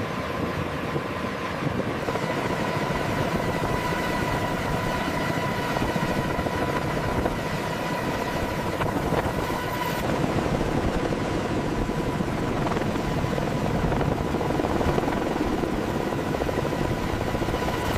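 CH-53K King Stallion heavy-lift helicopter running in a hover: a steady mix of rotor and turbine noise with a constant high whine over it.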